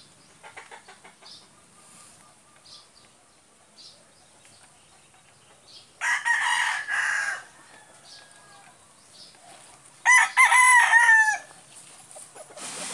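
Rooster crowing twice: a rougher crow about six seconds in, then a clearer, more pitched crow of several notes about ten seconds in.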